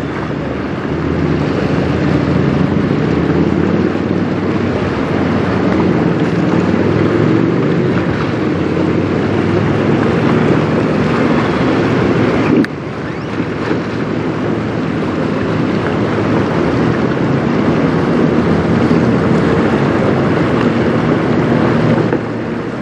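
Strong wind buffeting the microphone over choppy river water, with a steady low engine hum underneath. The sound breaks off and resumes about halfway through.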